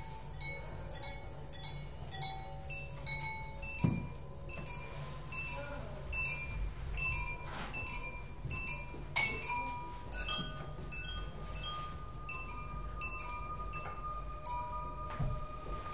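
Handmade ceramic sound bowls struck in quick succession with beaters, about two strikes a second, each ringing on briefly with a high, clear tone. A heavier knock comes about four seconds in and again about nine seconds in, and from about ten seconds a steady ringing tone sounds under the strikes, over a low hum.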